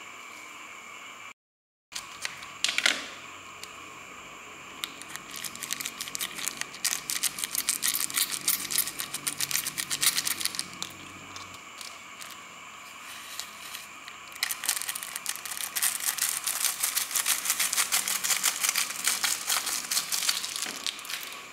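Boiled quail eggshells being cracked and peeled by hand over a glass bowl: a dense, fast crackling in two long stretches, over a faint steady high whine.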